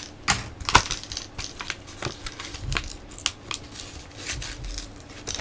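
Scattered small clicks and taps of hard plastic as action figures and their small accessories are handled.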